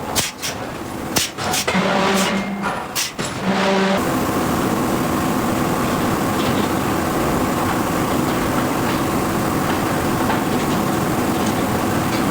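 Hydraulic forging hammer striking hot steel: a handful of irregular heavy blows over the first few seconds, with short pitched machine sounds between them. About four seconds in, this gives way abruptly to a steady, loud machinery noise with no distinct blows.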